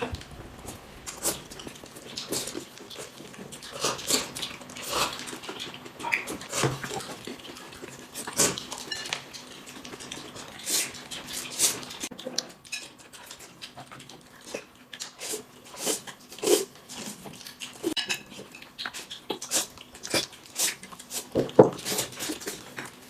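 Spoons or chopsticks clinking and scraping against bowls, with eating sounds, in many short, irregular clicks.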